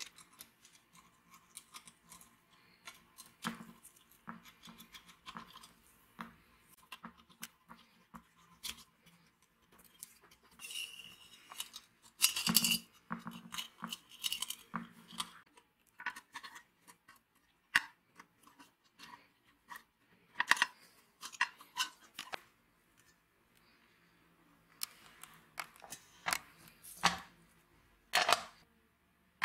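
Sheet-metal parts of a small electric coffee warmer being handled and fitted together: scattered light clicks, taps and scrapes of metal on metal. The loudest is a clatter with a brief metallic ring about twelve seconds in.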